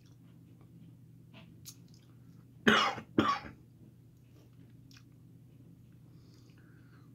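A man coughs twice in quick succession about halfway through, while tasting a vinegary piri piri hot sauce. A few faint mouth clicks come before and after.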